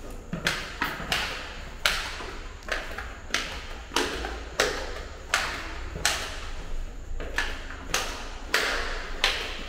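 Flip-flops slapping on a hard floor with each step, a sharp slap about every two-thirds of a second, over a low steady hum.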